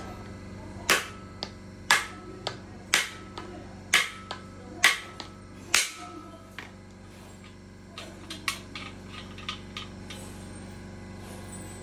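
Hammer tapping the main bearing caps down over the crankshaft of a 4.4-litre V8 diesel engine block to seat them, with about ten sharp metallic strikes roughly one or two a second. Lighter clicks and taps follow a couple of seconds later.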